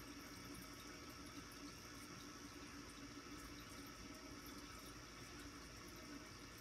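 Near silence: a faint, steady background hiss of a watery kind, with no frog calls or other distinct sounds.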